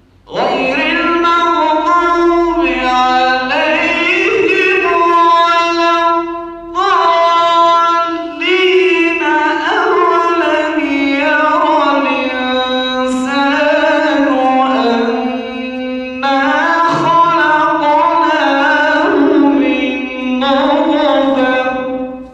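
A young man's unaccompanied solo voice reciting the Quran in the melodic tajweed style into a microphone, in long, ornamented phrases that glide up and down, with a few short breaths between them.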